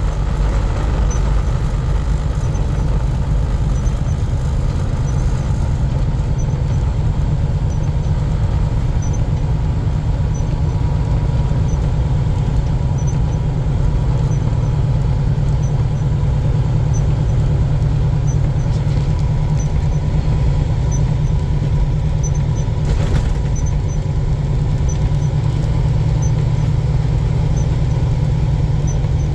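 Steady low drone of a truck driving on the highway, heard from inside the cab, with faint light ticks about once or twice a second.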